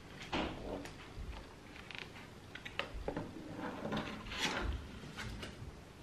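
Mealtime handling sounds: scattered clicks and taps of cutlery and food containers, with short rustles and a louder brief noise about four and a half seconds in.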